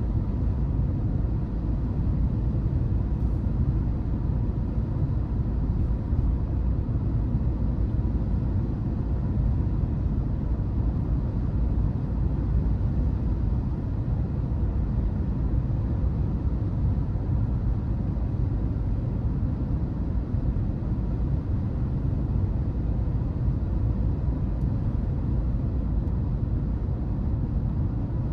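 Car driving at a steady speed: even, low road and engine rumble.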